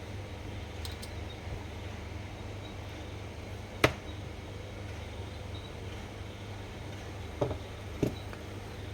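Small parts of a baitcasting reel being handled during disassembly: a sharp click about four seconds in and two softer knocks near the end, over a steady low hum.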